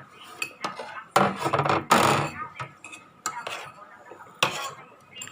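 Spoon and fork clinking and scraping against a plate while eating, in irregular strokes, the loudest scrapes a little after one second and two seconds in.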